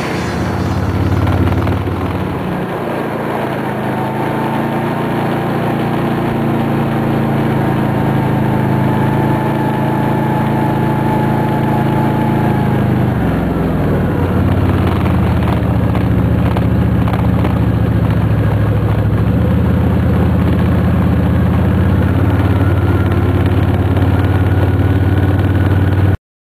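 ATV engine running as the quad rides along, a steady drone. About halfway through, its pitch drops as the rider eases off, then it holds steady again.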